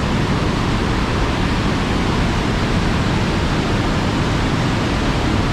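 Box Canyon Falls' 85-foot waterfall thundering down into a narrow quartzite canyon: a loud, steady rush of falling water, echoing between the rock walls.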